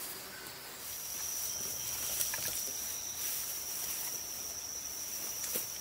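Woodland insects giving a steady high-pitched drone that starts about a second in, with a few light rustles and crunches of footsteps through grass and brush.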